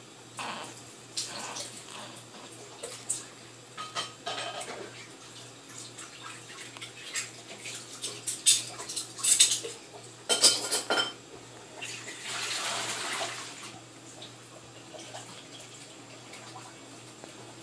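Dishes being hand-washed at a sink: scattered clinks and clatters of dishes and cutlery, busiest and loudest about halfway through, then a tap runs for a second or so.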